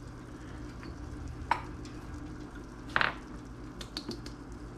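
Quiet kitchen sounds over a steady low hum. A large Cholula hot sauce bottle is shaken over tacos, giving two brief soft shakes about a second and a half apart, then a few light clicks.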